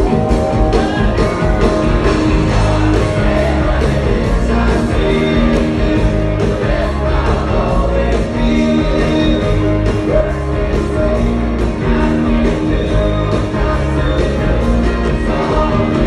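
Live rock band playing with a large group of voices singing together over electric guitar and drums keeping a steady beat.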